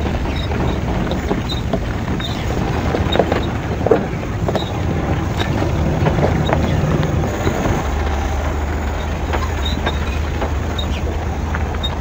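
Off-road vehicle driving slowly over rocky ground: a steady low engine rumble, with tyres crunching over stones and scattered knocks as it jolts over bumps.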